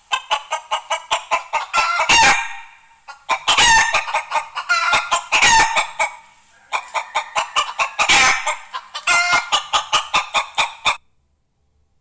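Chicken clucking in fast runs of short notes, each run broken by a louder, drawn-out squawk, four times over. The sound stops abruptly near the end.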